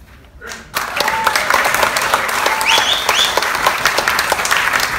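Audience applauding: a sudden start of many hands clapping about three-quarters of a second in, then a dense, steady clatter of claps.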